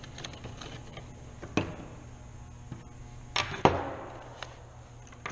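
Handling noise of drain parts on a table: a few knocks and clicks as a metal sink basket strainer and plastic drain tubing are set down and picked up, with two sharper knocks close together a little past halfway.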